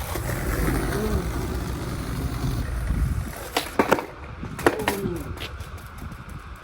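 Skateboard wheels rolling on pavement with a steady rumble, then several sharp clacks of the board about halfway through.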